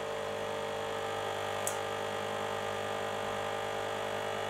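Eurolite NH-10 hazer buzzing loudly and steadily, with its cooling fan running: the fluid pump is running dry before it has drawn up the haze fluid, as the owner thinks. A faint click comes about a second and a half in.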